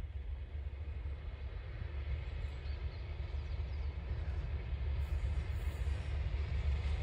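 Diesel locomotive approaching with its engine rumbling, the sound growing slowly louder as it nears.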